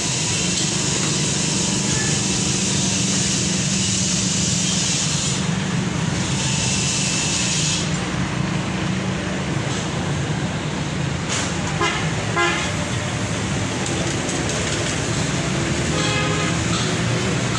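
Vehicle noise: a steady engine hum, with short horn toots about twelve seconds in and again near the end.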